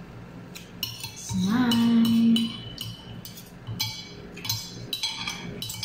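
Metal spoons and forks clinking and scraping against ceramic plates while eating noodles, in a quick string of sharp clinks. About a second and a half in, a person hums a held "mmm" for about a second, louder than the clinks.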